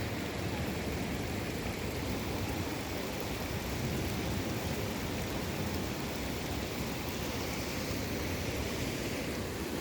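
Steady rushing of monsoon rainwater, an even noise with no breaks.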